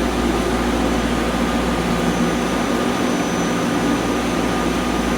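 Steady droning hum of air-conditioning or ventilation equipment, with a faint high-pitched whine over it and no change in level.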